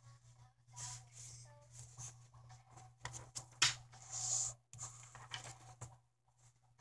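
Rustling and handling noises close to the microphone, with several sharp clicks. The loudest rustle comes about three and a half to four and a half seconds in, and it goes quieter near the end. A steady low hum lies underneath.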